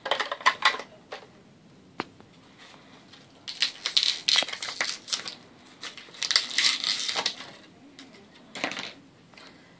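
Small hard-plastic toy pieces of a Shopkins fridge playset being handled: several bursts of clicking and clattering, the longest about halfway through, with one single click about two seconds in.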